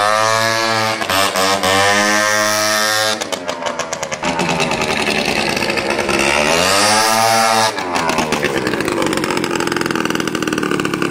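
Small motorcycle engine running with no exhaust fitted, revving up and down twice as the bike is ridden: the pitch climbs at the start, holds, drops about three seconds in, climbs again around six seconds in, then falls back to lower running near the end.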